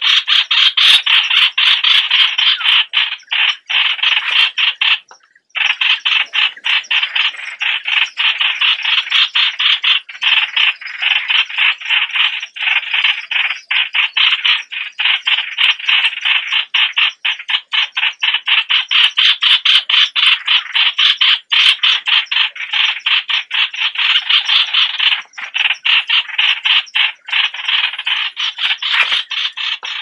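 Yellow-vented bulbuls calling: a loud, dense run of rapid chattering notes with a brief pause about five seconds in.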